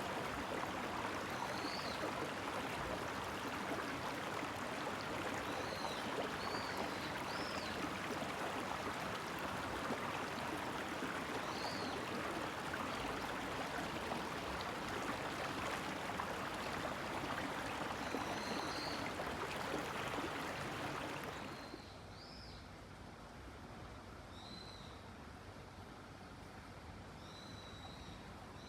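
Small birds chirping, short arched calls every second or two, over a steady rush of outdoor noise. The rushing stops abruptly about three-quarters of the way through, leaving the chirps over a quieter background.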